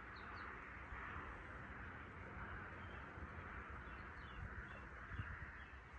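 Faint outdoor ambience: a few short high bird chirps, a pair just after the start and a handful more in the second half, over a steady background hiss and low rumble.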